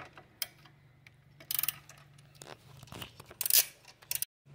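Socket ratchet clicking in a few short runs as 10 mm bracket bolts are backed out, with small metal clinks between runs.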